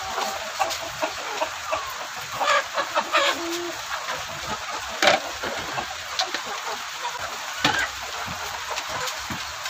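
Chickens, hens and roosters, clucking as they feed, with short calls scattered through and a few sharp sounds, the sharpest about five seconds in.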